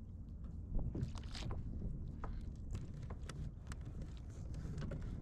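Wind rumbling on the microphone and water slapping against a plastic fishing kayak, with scattered small clicks and knocks as fishing tackle is handled.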